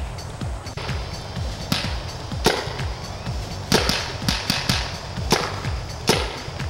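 Background electronic music with a steady low beat, over which paintball markers fire about nine sharp, unevenly spaced cracks, several in quick succession around the middle.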